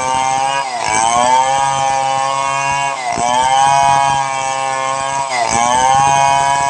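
Stihl 070 two-stroke chainsaw running at high revs; its pitch drops sharply and climbs back three times, about every two and a half seconds.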